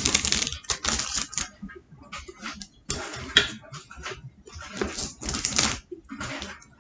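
Irregular rustling and knocking as cardboard snack packs and a glass citrus-juicer bowl are handled on a table, in short noisy bursts with a few sharp clicks.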